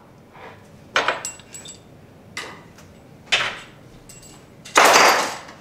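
Objects being handled and set down on a kitchen counter: a few separate knocks and clatters, then a louder, rougher clatter lasting about half a second near the end.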